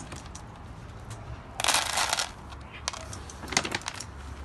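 Dry cat kibble being handled and poured out for treat toys: a short rattling rustle about a second and a half in, followed by a few scattered light clicks.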